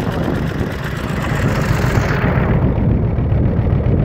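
Tractor engine running close by, a steady low rumble, more muffled from about halfway through.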